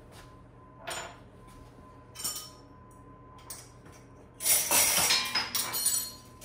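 Dishes and utensils clinking: a couple of light clinks, then a louder run of glass and metal clatter lasting about a second and a half, from roughly four and a half seconds in.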